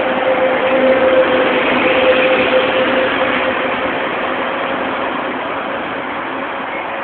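Busy road traffic going past close by, with a city bus among it. A steady engine hum sits over the rush of the traffic and is loudest in the first three seconds, and then the noise slowly fades.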